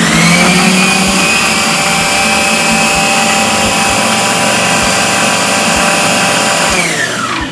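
Prestige electric mixer grinder running at full speed, grinding oats in its steel jar. The motor spins up right at the start, runs with a steady whine, then winds down near the end as it is switched off.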